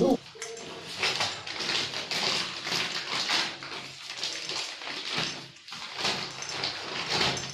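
White PTFE thread-seal tape being pulled off its roll and wound around the threads of a chrome shower-mixer leg fitting by hand: a run of irregular rustling, scratchy strokes.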